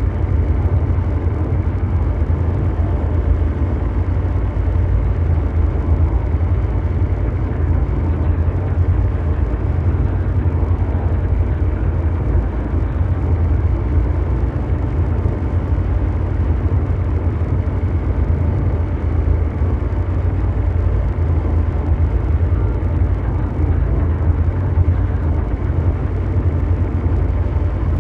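Continuous mechanical drone ambience: a steady, deep, engine-like rumble of brown-noise-style noise, heaviest in the bass, that never changes.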